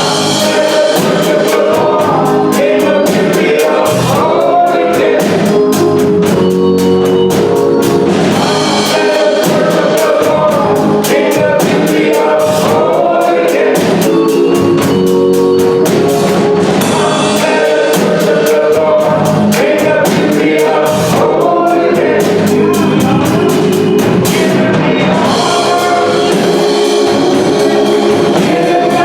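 A gospel choir singing over band accompaniment with percussion, loud and steady throughout.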